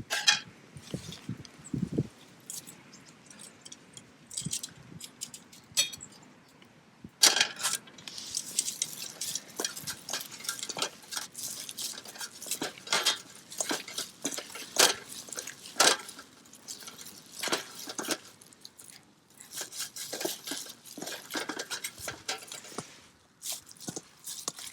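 Cooking utensils clinking and knocking on metal camp cookware in many short, sharp strikes, sparse at first and then coming thick and fast from about seven seconds in.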